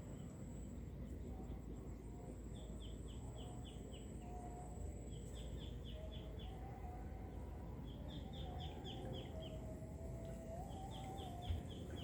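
A bird repeating a short phrase of five to seven quick, falling chirps, four times at intervals of about two and a half to three seconds, over a steady low rumble and a thin, steady high tone.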